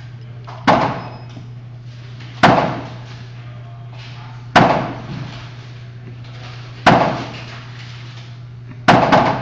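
Gunshots fired one after another, about two seconds apart, each with a short echoing tail; the last two come in quick succession near the end, six shots in all.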